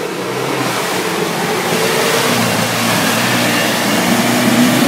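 Land Rover Defender's engine working hard as it ploughs through deep mud, the engine note rising slightly and getting louder towards the end, over the churning of the tyres in the mud.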